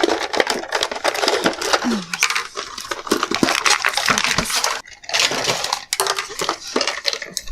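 Plastic toy playset and its packaging being handled and pulled out of the box: a dense, continuous crinkling and clattering of plastic with a couple of brief pauses.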